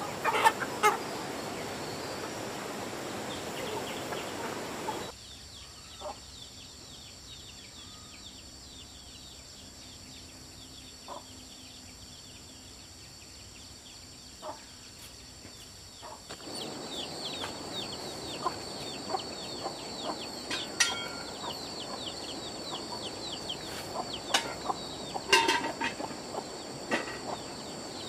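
Chickens clucking outdoors, with a steady high-pitched drone behind. The background drops quieter about five seconds in and picks up again around sixteen seconds.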